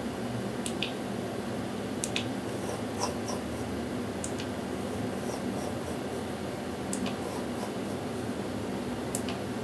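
Steady hum of the ultrasound scanner's cooling fan, with a scattering of faint short clicks from the console keys as measurement calipers are placed.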